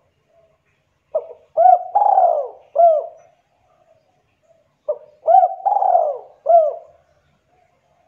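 A caged dove cooing: two phrases about four seconds apart, each a short opening note followed by three arched coos, the middle one longer and falling.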